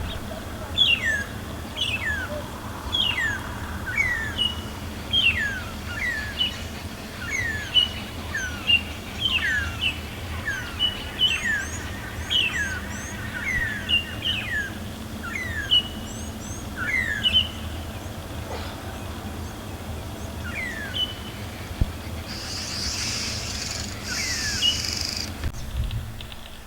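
Birds calling: one bird repeats short whistled notes that slide downward, about one or two a second, among fainter high chirps from other birds. A few seconds of high hissing noise join in about three-quarters of the way through.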